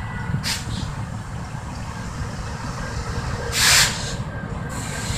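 Union Pacific diesel locomotive running slowly with a steady low rumble as it approaches. A short burst of hissing air comes about three and a half seconds in and is the loudest sound, with a briefer hiss near the start.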